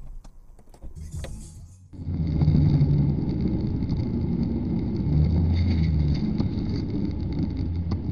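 Steady, loud engine and road rumble from a vehicle driving in city traffic, starting abruptly about two seconds in.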